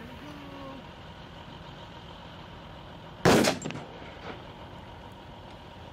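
A single pistol shot from an FK BRNO PSD firing a 7.5 FK round, about three seconds in, with a short echo trailing after it. A steady diesel engine hum runs in the background.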